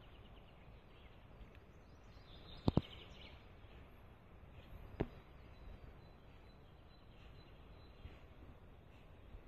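Quiet outdoor ambience with faint bird chirps. A sharp double knock comes a little under three seconds in, and a single knock about five seconds in.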